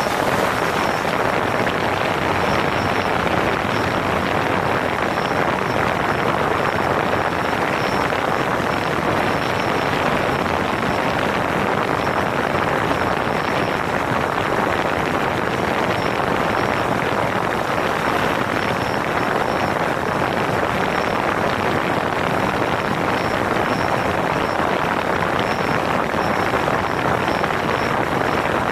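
DJI Phantom 4 quadcopter's propellers and motors running steadily in flight, heard at close range through a camera mounted on the drone itself, a loud unbroken rushing noise.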